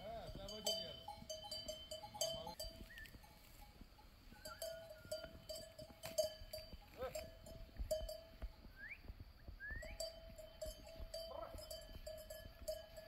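Bells on a grazing flock of sheep clanking irregularly as the animals move and feed, with a sheep bleating once or twice.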